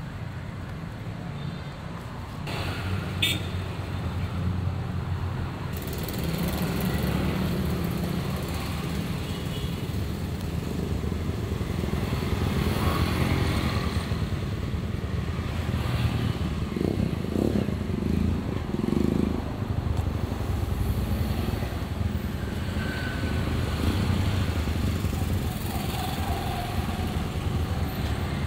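Road traffic: passing motorcycles and cars, with a steady low engine rumble.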